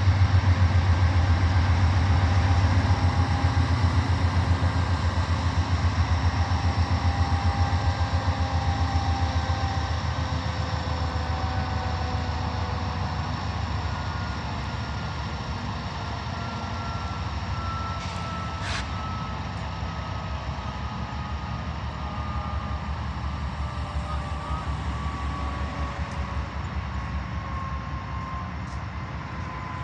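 Diesel locomotive engine rumbling with a low, fast throb that fades gradually, with thin high tones slowly falling in pitch above it.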